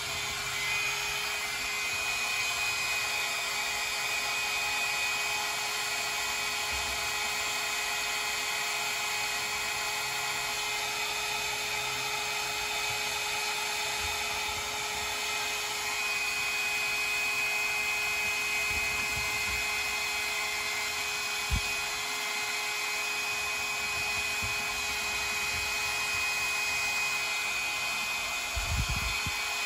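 Handheld electric hairdryer running steadily: a rush of air with a steady high motor whine. A sharp knock about two-thirds through and a brief bump near the end.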